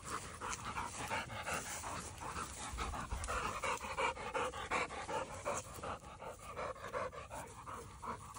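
An American Bulldog panting in quick, even breaths.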